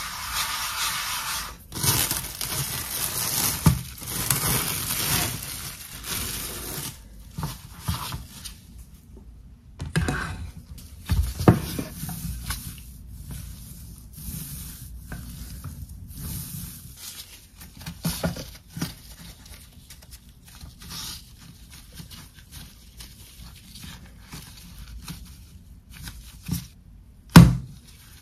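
Food-preparation handling sounds in a kitchen: several seconds of rustling and rubbing, then scattered light taps and clatters, with one sharp knock near the end.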